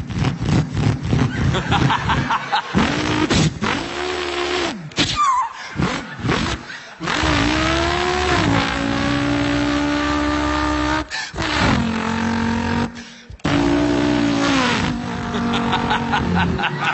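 A man imitating a car engine with his voice: quick clicking pops at first, then a string of short revs that swoop up and down, and longer held notes like an engine winding out through the gears, broken by brief pauses.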